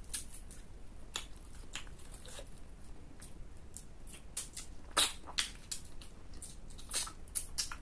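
Close-up eating sounds: irregular wet mouth smacks and crunchy bites while chewing food, the loudest about five seconds in and a quick run of them near the end.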